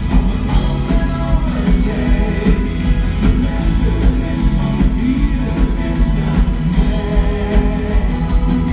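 Live band playing: a lead singer's voice over drums and keyboard.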